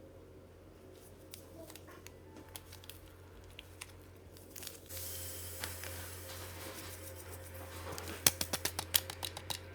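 Kitchen preparation sounds over a steady low hum: packaging crinkling and rustling with scattered small clicks. Near the end comes a quick run of about nine sharp taps, the loudest sounds.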